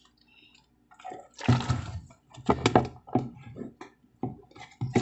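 Wet squelching and squishing of glue slime as it is stirred and worked with activator, coming in irregular bursts from about a second and a half in.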